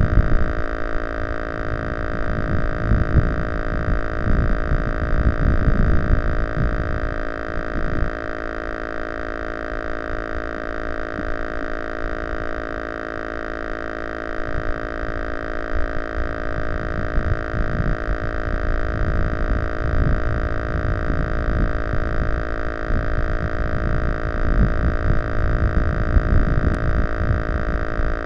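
Steady electrical whine of several fixed, unchanging tones, the interference typically picked up by an analog FPV camera's audio, over an uneven low rumble of wind buffeting the microphone. The rumble eases off in the middle and picks up again near the end.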